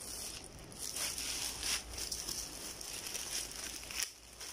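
Blue plastic mailer bag crinkling and rustling as it is handled and opened, with irregular crisp crackles that stop about four seconds in.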